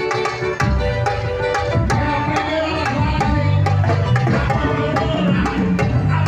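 Live band music: hand drums and other percussion striking over pitched instruments, with a strong low bass part coming in about half a second in.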